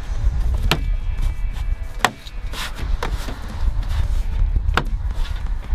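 BMW Z4 door card being pressed onto the door by hand, its plastic trim clips seating: several sharp knocks and clicks about a second apart over a steady low rumble.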